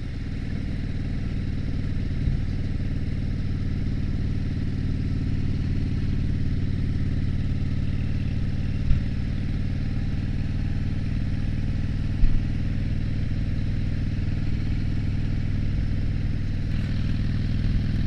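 2007 Harley-Davidson Dyna Street Bob's air-cooled V-twin running steadily under way on the road, heard from a helmet-mounted mic. It is a little lower for the first moment, then holds an even note, with a few brief knocks about two, nine and twelve seconds in.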